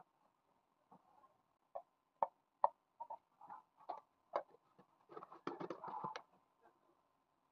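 Whole lemons knocking against each other and the jar as they are put into a clear storage jar, with a few sharp taps, two of them loud, then a cluster of clicks and rubbing about five to six seconds in as the lid is closed.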